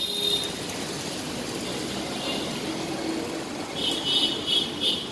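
Steady background traffic noise, with a few short high-pitched beeps near the end.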